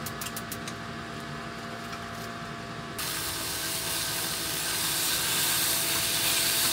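A low steady hum, then about three seconds in, food sizzling in a hot pan starts suddenly and grows louder.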